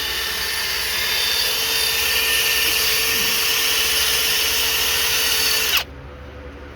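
Power tool spinning an abrasive wheel against the exhaust ports of a Chevy 305 small-block, grinding off carbon gunk before headers go on. A steady whine that stops abruptly near the end.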